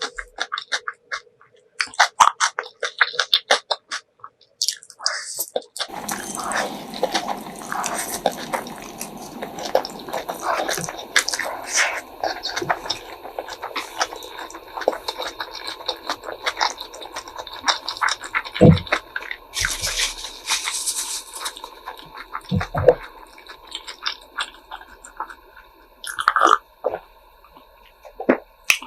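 Close-miked mouth sounds of eating ramen noodles and kimchi: wet chewing, smacking and slurping in quick, clicky bursts. About six seconds in, a steady background hum and hiss comes in under the eating sounds.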